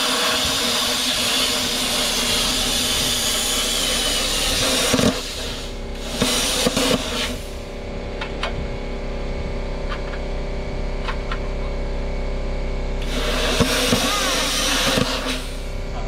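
Plasma cutter cutting through steel square tubing: a loud hiss of the arc and air for about five seconds, a brief burst around six seconds in, then a steady lower hum between cuts, and a second hiss of cutting lasting about two seconds near the end.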